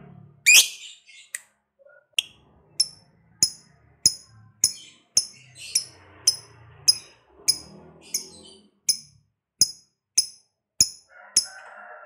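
Lovebird giving a steady series of short, sharp, high-pitched chirps, about one every half second or so, the first near the start louder than the rest.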